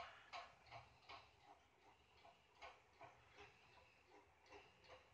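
Near silence with faint, even ticking, about three ticks a second.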